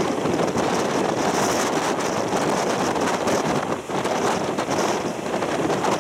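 Wind rushing past the microphone at the open window of a moving Japanese-built old passenger coach, over the steady running noise of its wheels on the rails.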